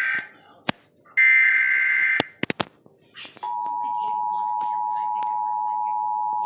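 Emergency Alert System SAME header data bursts, harsh buzzy digital tones: the end of one burst, then another lasting about a second, with a few clicks between. About three and a half seconds in, the steady two-tone EAS attention signal (853 and 960 Hz together) starts and holds.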